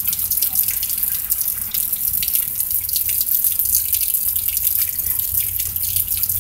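Heavy rain pouring down, with a dense patter of close drops and a steady low rumble underneath.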